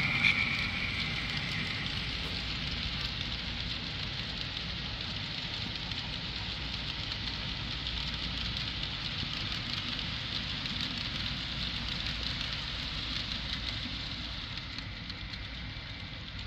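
HO scale model train running along the layout track: a steady rolling hiss of wheels on rail over a low rumble. A high steady tone fades out in the first couple of seconds, and the sound grows a little quieter near the end.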